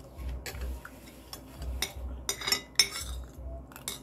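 Cutlery clinking and scraping against glass dishes while eating, in a series of sharp, irregular clinks.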